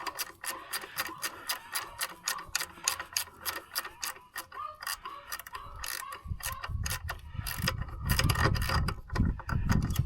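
Cut-down 13 mm ratcheting wrench clicking rapidly, about four clicks a second, as it is worked back and forth to loosen a nut on a stud. Heavier low knocking and rubbing join in for the last few seconds.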